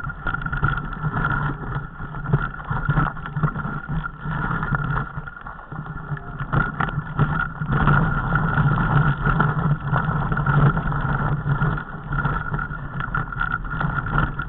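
Mountain bike riding down a loose, stony trail: a steady rumble with constant rattling and knocks as the bike and its mounted camera jolt over the rocks.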